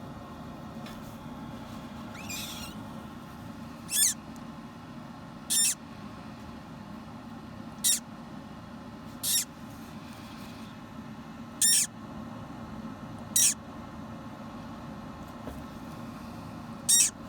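Hatching parrot chick peeping: about seven short, high-pitched squeaks, each dropping in pitch, one to three seconds apart, over a steady low hum.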